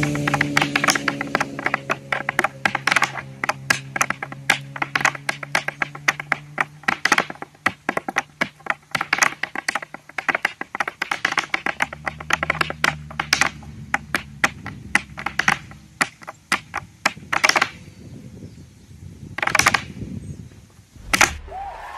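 Irish dance hard shoes beating rapid, rhythmic clicks and taps on a portable dance board. Near the end the taps thin out to a couple of louder stamps.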